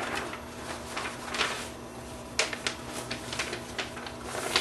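Handling noise: a string of light rustles, clicks and taps, unevenly spaced, from paper and small parts being handled, over a faint steady hum.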